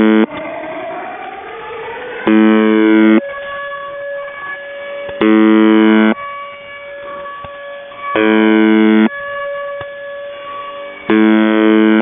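UVB-76 'The Buzzer' shortwave channel marker received by radio: four harsh buzzes, each just under a second long, about three seconds apart. Between them, pirate jamming audio of an air-raid siren, rising at first and then holding steady tones, over receiver hiss.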